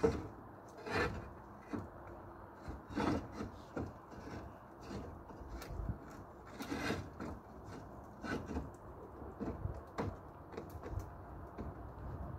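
Roof tiles being handled and set back into place: irregular scrapes and knocks of tile against tile, a few of them louder than the rest.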